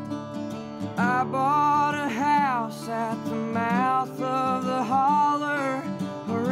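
Background music: a song with guitar, and a voice starts singing about a second in.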